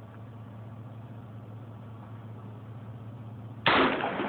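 A steady low hum, then about three and a half seconds in a single loud, sudden shot from a .223 AR-15 rifle with a 20-inch E.R. Shaw barrel, trailing off in echo.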